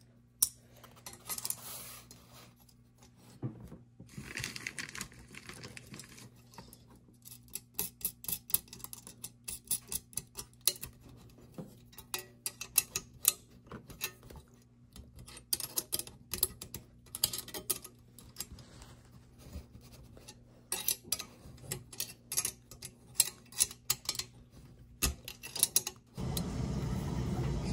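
Light, irregular metal clicks and clinks as aluminium flat bars, screws and small hardware are handled and fitted together by hand, over a faint steady hum. Near the end a loud, steady background rumble comes on.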